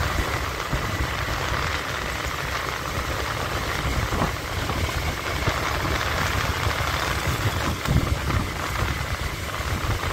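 Steady engine and road noise of a motorbike riding through city traffic.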